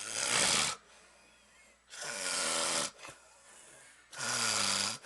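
A man snoring loudly, three snores about two seconds apart, the second and third with a low buzzing rattle; loud, pig-like snoring.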